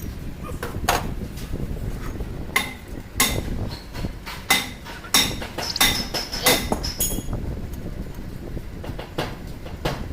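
Metal striking metal during TATA GB 27 gearbox repair work: an irregular series of sharp hammer-like clanks on gearbox parts, each ringing briefly. The strikes are loudest and closest together through the middle.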